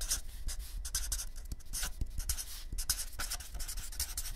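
Pen scratching on paper in quick, irregular strokes, the sound of handwriting.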